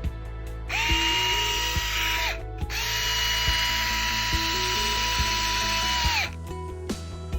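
Fanttik NEX L1 Pro cordless electric screwdriver running with no load in two bursts, a short one of about a second and a half and then one of about three and a half seconds; each starts with a quick rising whine as the motor spins up and ends with the pitch dropping as it stops. Background music plays underneath.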